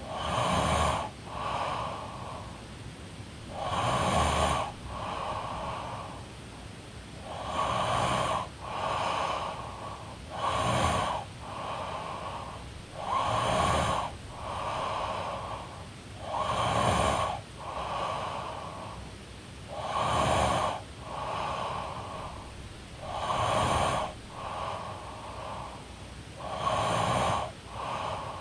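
A woman snoring in her sleep in a steady rhythm, a breath about every three seconds, nine in all. Each breath is a louder snore followed by a softer, shorter one.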